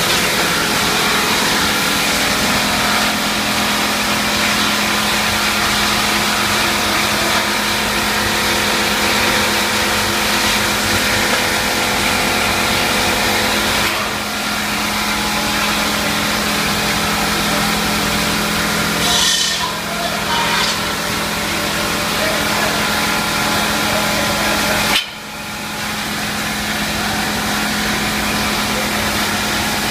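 PVC pipe extrusion line running: a steady mechanical drone from its motors and drives, with a constant hum. A sharp click about 25 seconds in is followed by a brief dip in the sound.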